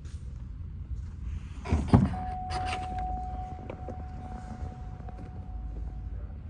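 Cadillac CTS-V coupe driver's door opened by its electronic touch-pad release: a loud thunk of the latch about two seconds in, followed by a steady high tone that keeps sounding, over a steady low rumble.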